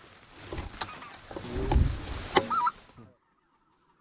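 Specklebelly goose calls, short high yelping notes, over a rumble of wind on the microphone and a few sharp knocks. The sound cuts off suddenly about three seconds in.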